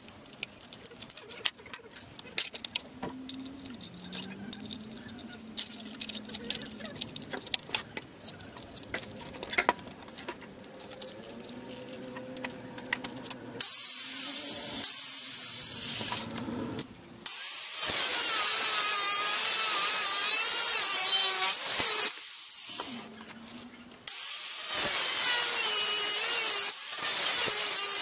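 Clicks and light clatter of an angle grinder being handled as a cut-off disc is fitted, then the angle grinder runs with its cut-off wheel cutting through a steel strip, loud, in spells, stopping briefly twice.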